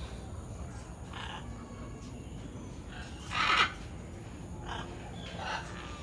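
Scarlet macaws squawking: one loud, harsh squawk about three seconds in, with a few fainter squawks before and after it.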